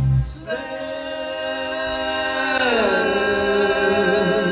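The band's instruments cut off right at the start, leaving several singers holding a sustained unaccompanied vocal chord, which slides down to a lower chord about two-thirds of the way through.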